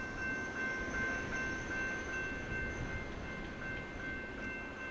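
BNSF freight train rolling past with a steady rumble of wheels on rail and several thin, high-pitched squealing tones held over it.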